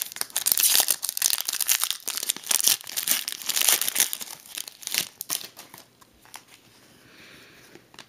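Plastic trading-card packaging crinkling and tearing as it is opened, busy for about five seconds, then dying away.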